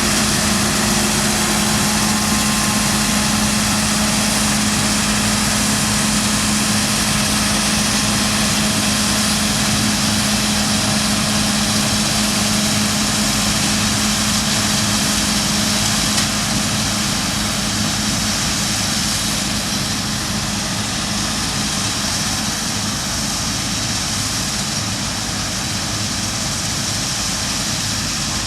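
Claas Lexion 7600 combine harvester running steadily as it cuts beans, engine and threshing machinery together. A steady low hum in the sound drops away about halfway through, and the overall level eases slightly.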